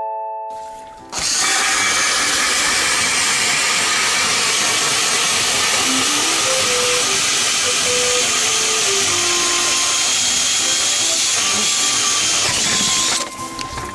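Power ice auger drilling a fishing hole through lake ice, running steadily at full speed. It starts about a second in and cuts off suddenly shortly before the end.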